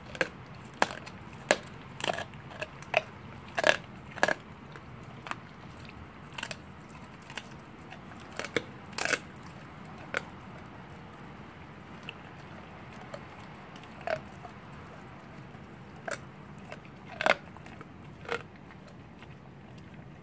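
A young Blue Bay Shepherd crunching the bones of a raw rabbit rib cage: sharp cracks and crunches, about every half second at first, then a few seconds apart.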